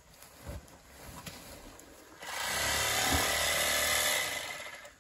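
Corn being shovelled out of the crib and poured into a sack: a rushing rattle of grain that swells in a little over two seconds in, runs for about two seconds and fades away, after a few light scrapes and clicks.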